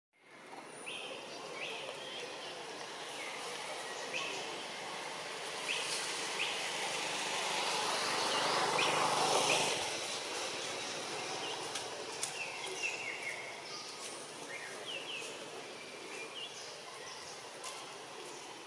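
Outdoor ambience: a steady hiss with many short, high chirping calls scattered through it. A louder rush of noise builds to about ten seconds in, then drops away.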